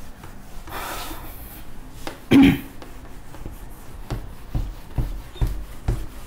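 A whiteboard duster rubbing across a whiteboard to erase writing, with soft low thumps about twice a second in the second half. A brief louder sound comes about two and a half seconds in.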